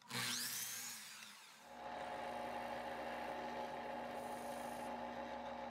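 Woodworking power tools at low volume: a miter saw running and dying away after a crosscut in cherry. About a second and a half in, a bandsaw takes over, running with a steady motor hum.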